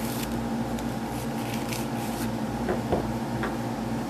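Paper rustling and crinkling as it is folded over a wooden dowel to close a paper cartridge for a Sharps rifle, with a couple of small clicks about three seconds in. A steady background hum runs under it.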